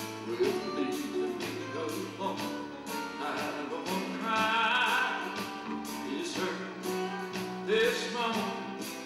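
Live country song: a man singing into a microphone over strummed acoustic guitar.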